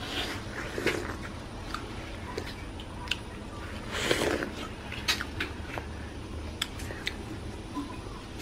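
Someone biting into and chewing a wedge of watermelon: scattered short wet clicks and smacks, with a louder bite about four seconds in.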